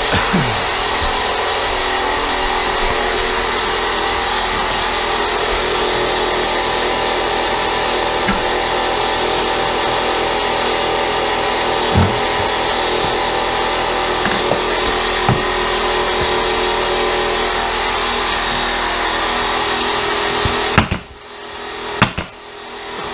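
Air compressor running steadily, with a few sharp knocks over it. Near the end the running noise drops away and a pneumatic nail gun fires twice, about a second apart.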